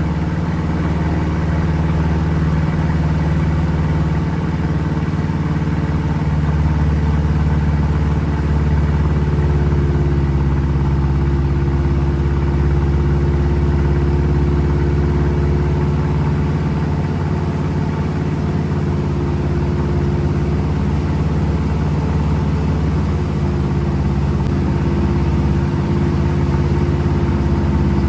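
Piper PA-18 Super Cub's piston engine running steadily, its pitch shifting slightly about nine seconds in.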